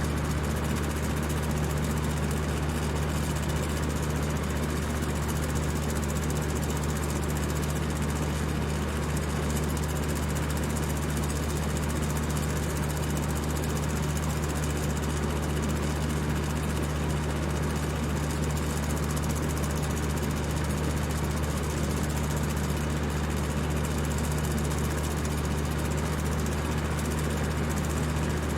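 High-speed electric fan running steadily: a low motor hum under an even rush of air.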